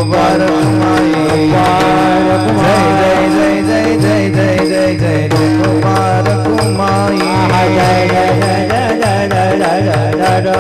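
Marathi Varkari bhajan music with no words: a melody moves over a steady held drone, with a running drum pattern and metallic cymbal strikes keeping time.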